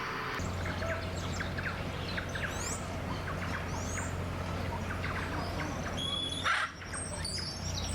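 Wild birds chirping and calling in many short notes and quick rising whistles over a steady low hum, with one brief louder sound about six and a half seconds in.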